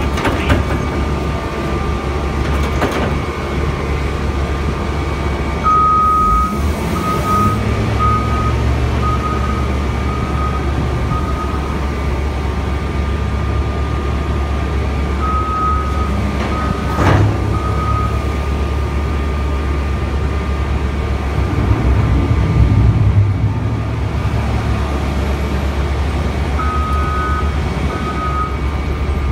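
Caterpillar wheel loader's diesel engine running steadily, revving up twice as it manoeuvres, with its reversing alarm beeping in three spells. There is a single sharp clank about midway.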